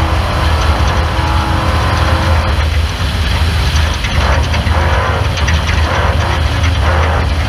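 Off-road race car running, a steady low engine drone under heavy mechanical rattling and clatter that thickens about halfway through.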